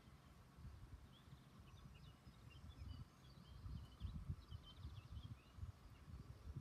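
Quiet outdoor ambience: faint scattered bird chirps over a low, uneven rumble.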